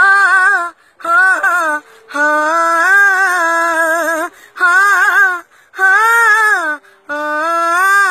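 A young boy singing a Punjabi song unaccompanied in a high voice: six phrases of long held notes with a wavering vibrato, broken by short breaths.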